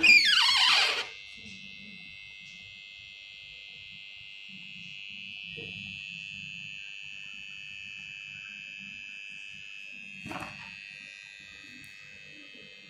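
Chinese Hanbao inverter running on its replaced oscillator card, giving a steady high-pitched whine. In the first second a loud chirp falls sharply in pitch; a short noise near the end.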